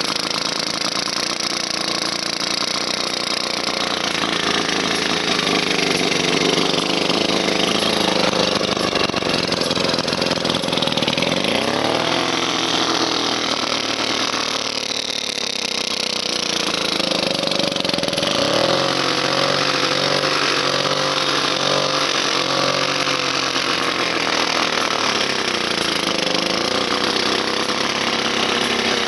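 ATCO Midget 79cc Villiers two-stroke outboard engine running continuously, its speed dropping and picking up again several times as the throttle is worked.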